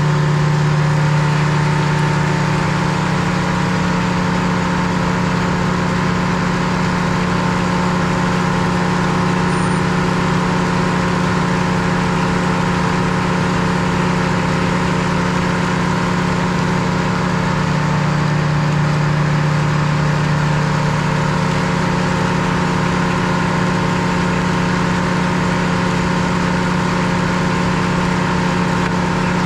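Sawmill engine running steadily, a constant low pitched hum with no breaks, swelling slightly twice.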